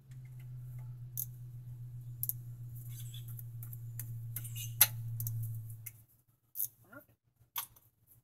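Fine-toothed 80-tooth ratchet clicking as a brake caliper bolt is tightened, over a steady low hum that stops about six seconds in. A few separate clicks and taps follow near the end.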